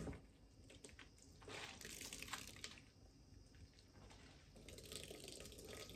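Faint soft rustling and wet crunching of shredded, salted cucumber being handled by hand, in two short spells.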